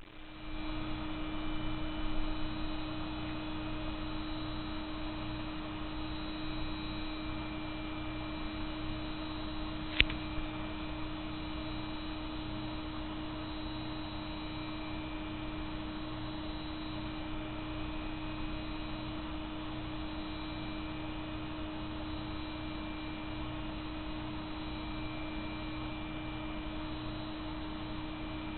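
Steady hum over a low rumble, with one sharp click about ten seconds in.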